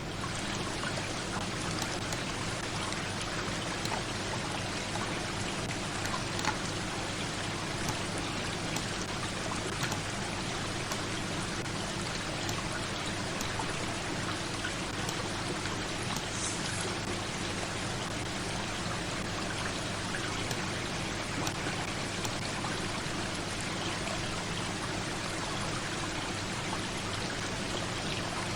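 Steady rushing noise like running or pouring water, unbroken throughout.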